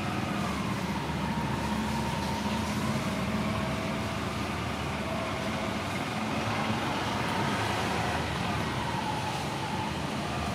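Steady background rumble of distant road traffic, with faint wavering tones drifting up and down over it.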